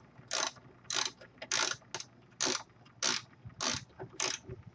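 Ratcheting socket wrench being swung back and forth to tighten a nut: a short burst of pawl clicks on each stroke, about eight bursts roughly half a second apart.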